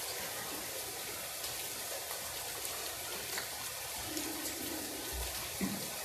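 Steady rain falling outside an open window: an even hiss with a few faint scattered drip ticks.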